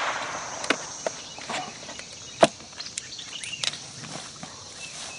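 Footsteps and scattered handling clicks and knocks, one sharper than the rest about halfway through, over a faint high drone of summer insects.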